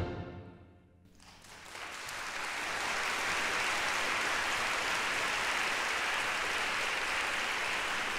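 The fanfare orchestra's final chord dies away into the hall's reverberation. After a brief hush, audience applause builds over about a second and holds steady as dense clapping.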